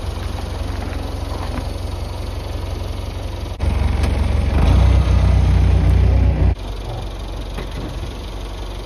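Massey Ferguson tractor engine running steadily. About three and a half seconds in it is throttled up sharply and held for about three seconds, then drops back suddenly, as the log forks lift cedar logs under hydraulic load.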